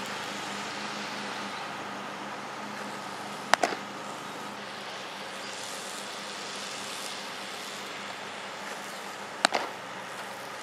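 A pitched baseball smacking into a catcher's leather mitt twice, about six seconds apart, each a sharp pop with a quick smaller crack right after, over a steady outdoor hiss with distant road traffic.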